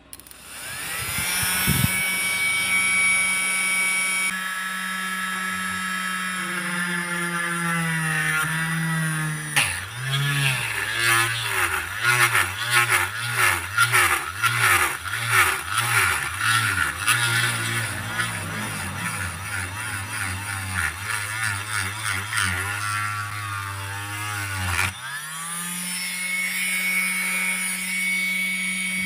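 Salvaged small DC motor with a drill chuck and homemade hole saw spinning up to a steady whine, then bogging down under load into an uneven, pulsing drone as the saw cuts through a PVC pipe fitting. Near the end it runs freely at full speed again once through the plastic, then starts to wind down.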